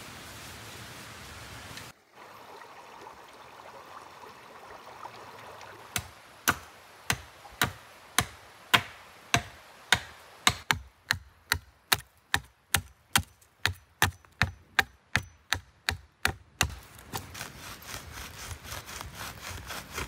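A long series of sharp knocks, about two to three a second, starts about six seconds in and comes faster toward the end before stopping, followed by rustling.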